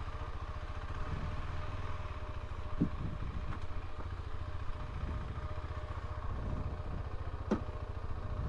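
Motorcycle engine running steadily, with a few short clicks.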